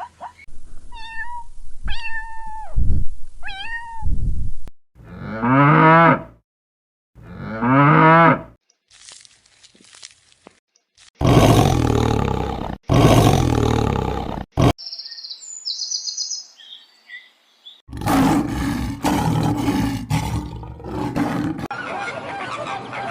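A series of different animal calls, one after another with short pauses: three short falling calls, two longer pitched calls, loud harsh calls, some high chirps, then more harsh calling near the end.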